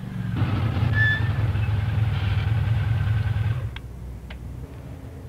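Honda motorcycle's engine running steadily as the bike rides through a curve, loud for about three seconds. It then drops to a much quieter steady running, with two short clicks.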